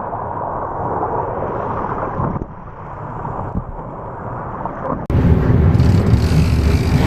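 Wind rushing over the microphone on an offshore fishing boat, with the boat's engine running underneath. About five seconds in, the sound cuts abruptly to a louder, deeper rumble.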